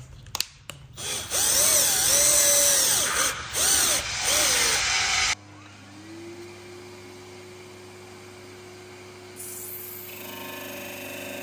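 A cordless drill-driver whirring in several loud bursts, its motor speeding up and slowing as screws are driven to fix a plastic back plate to a recoil pad. About halfway through it gives way to a quieter disc sander running with a steady hum, its tone rising as it comes up to speed; near the end a rasping hiss joins as the plastic plate is pressed against the sanding disc.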